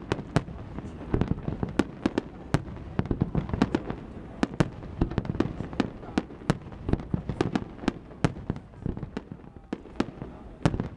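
Festival fireworks display: a rapid, irregular barrage of sharp bangs, several a second, over a steady rumble of further bursts.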